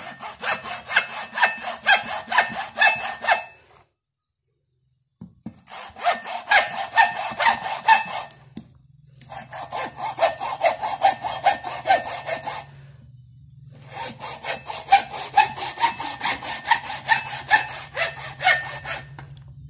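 Hacksaw cutting into the plastic case of a motorcycle battery in quick back-and-forth strokes, in four spells with short pauses between.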